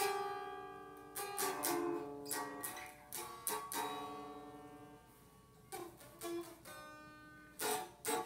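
Electric guitar playing strummed chords and a few picked notes, each left to ring out. The strums come steadily at first, then thin out and grow quieter about halfway through.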